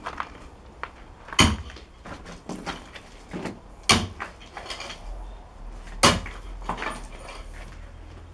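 Sharp knocks every two to three seconds, with smaller scrapes and clatter between them: a hand tool striking stony ground as a worker digs.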